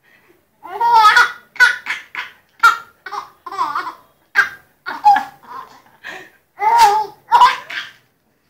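Baby laughing in a string of short, high-pitched bursts, about a dozen over some seven seconds.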